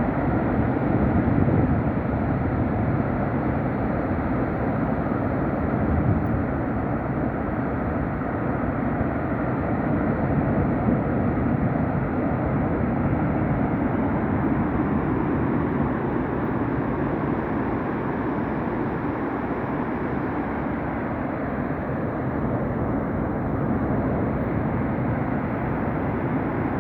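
Sea surf: waves breaking and washing up a beach, a continuous low rushing noise that swells slightly every few seconds.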